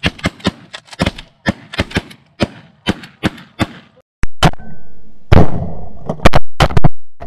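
Volley of shotgun fire from several hunters shooting at snow geese, shots coming in quick succession several per second. From about four seconds in, a cluster of much louder shots rings out.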